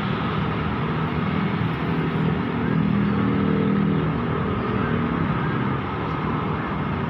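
Excavator's diesel engine running steadily, rising in load for a few seconds in the middle and then easing off.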